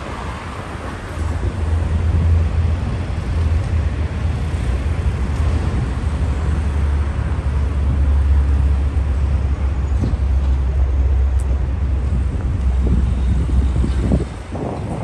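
City street traffic: cars and vans passing on a wide avenue, with a heavy low rumble. The rumble cuts off sharply near the end.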